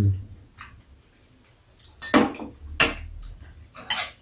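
Metal spoon and chopsticks clinking against ceramic bowls and dishes during a meal, a few separate sharp clinks.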